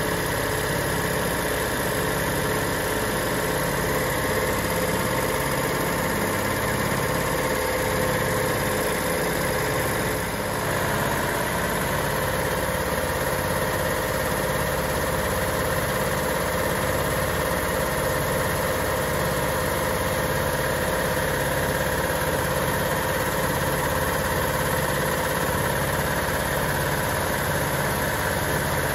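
Quincy QRD-15 15 hp dual-motor, belt-driven reciprocating air compressor running steadily, with an even low pulsing chug from the pumps.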